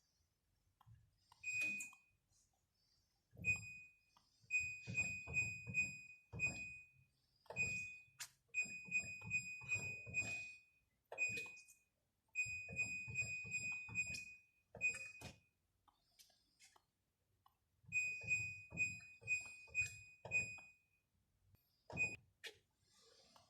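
An electronic beeper sounding a high steady tone in on-and-off stretches of uneven length, some brief and some lasting a couple of seconds, along with knocks and clunks of handling.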